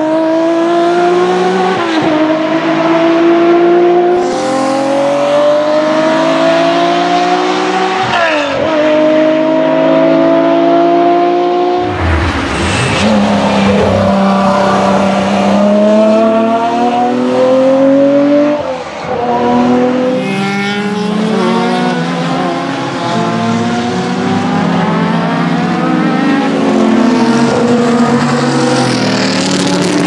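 BMW M1 Procar's BMW M88 straight-six racing engine accelerating hard. Its pitch climbs steadily, then drops sharply at each upshift, again and again through several pulls.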